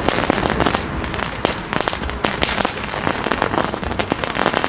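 Small ground firework fountain burning: a hissing spray of sparks with a rapid, irregular stream of crackling pops.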